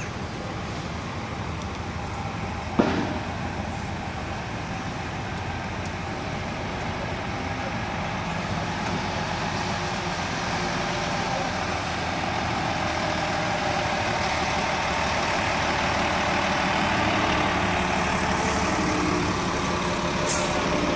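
Diesel engine of a Renault lorry tractor unit running at low revs as it slowly tows a large fairground ride trailer past, growing gradually louder as it comes closer. A sharp knock sounds about three seconds in, and a short hiss near the end.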